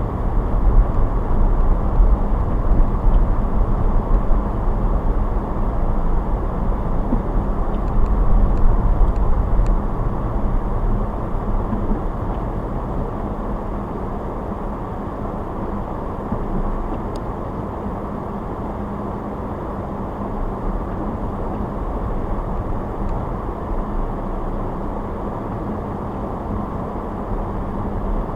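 Car driving on a snowy road: a steady low rumble of tyres and engine, easing a little about halfway through.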